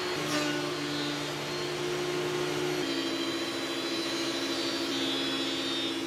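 Benchtop thickness planer running with its dust extraction while it planes old floorboards. It makes a steady mechanical drone, and its motor note drops and shifts a few times as boards pass through the cutterhead under load.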